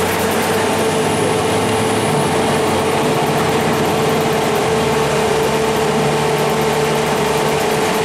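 Cummins ISC inline-six diesel engine of a 2002 Blue Bird CS transit bus running steadily, with a constant steady whine over the engine noise.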